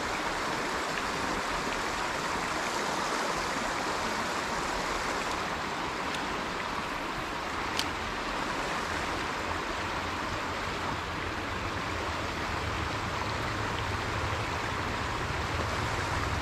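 Steady, even rushing noise with one sharp click about eight seconds in.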